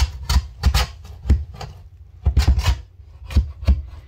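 Razor blade scraper scraping dried paint and caulk off a window pane along the edge of the frame, in short, irregular strokes.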